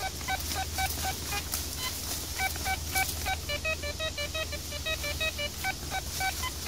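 Metal detector beeping in rapid short tones, several a second, as its coil sweeps over buried metal. The tone drops to a lower pitch for a couple of seconds midway, then returns to the higher beep.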